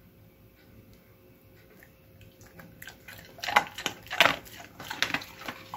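Newfoundland dog crunching a hard-baked homemade peanut-butter dog treat. After a quiet start, a run of sharp crunches begins about three seconds in as it chews.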